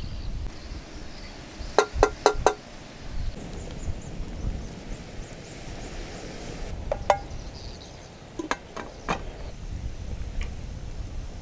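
Metal cooking utensil clinking against a cooking pot: four quick ringing clinks about two seconds in, then a few more, spaced further apart, later on, over steady outdoor background noise.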